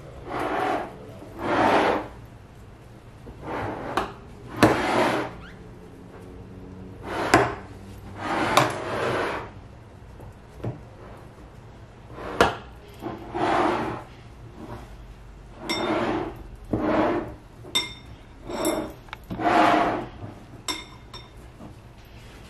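A vinegar-dampened cloth is rubbed around the rims of glass mason jars in repeated short swipes, wiping them clean before the lids go on. Several sharp glass clinks and knocks come in between the swipes as the jars are handled.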